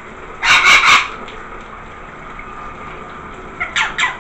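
Rainbow lorikeet calling while bathing: a loud, harsh three-part squawk about half a second in, and short falling chirps near the end. Under it runs the steady hiss of shower water.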